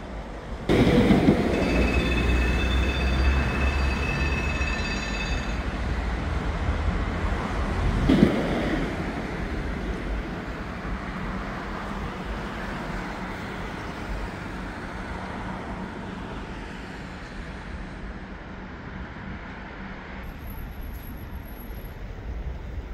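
A heavy vehicle passing close by on a city street. It comes in abruptly with a rumble and a steady high whine that stops after about five seconds, swells again briefly, then slowly fades away.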